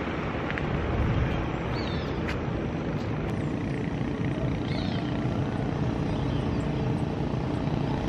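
Steady drone of town motor traffic, three-wheeled motorcycle taxis running on the street, with a couple of faint high chirps.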